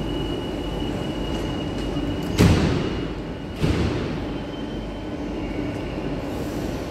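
Madrid Metro train at the platform. A steady high door-warning beep sounds, then the sliding doors shut with a loud bang about two and a half seconds in and a second bang about a second later, over the train's steady low hum.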